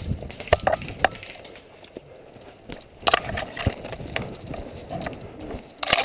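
Running footsteps crunching over dry twigs and pine needles on a forest floor, with irregular knocks and rustling.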